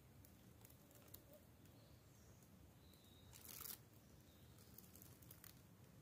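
Near silence: faint rustles and small clicks, with one brief, louder rustle a little past the middle.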